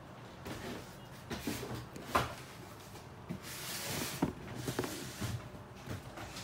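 Handling noise: light knocks, clicks and rustling as sneakers and their cardboard shoebox are handled close to the microphone, with one sharp knock about two seconds in and a rustle around four seconds in.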